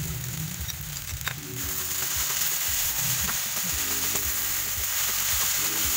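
Diced potatoes sizzling as they fry in oil in a non-stick pan, with a wooden spatula stirring and scraping them. The sizzle grows louder about a second and a half in.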